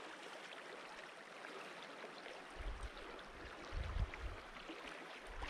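Faint, steady rushing of a shallow river flowing over gravel, with a few brief low rumbles of wind on the microphone.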